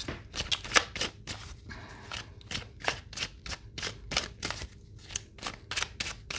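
A deck of oracle cards being shuffled by hand: a quick, irregular run of crisp card slaps and flicks, about three or four a second.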